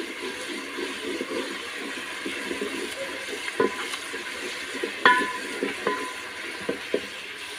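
A wooden spoon stirring a bubbling brown pillau base in an aluminium pot over a fire, with a steady sizzle. The spoon knocks against the pot several times in the second half, and the pot rings briefly after some of the knocks.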